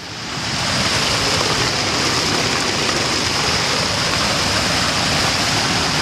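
Tioronda Falls on Fishkill Creek: water pouring over a rock ledge into white water, a loud steady rush. The sound swells back in over the first second after a brief dip.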